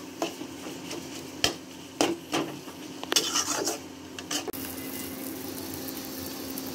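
Metal spatula stirring and scraping fish roe, onion and masala around a frying pan, with scattered clinks and scrapes against the pan. About four and a half seconds in the stirring stops and a steady sizzle of the frying mixture carries on.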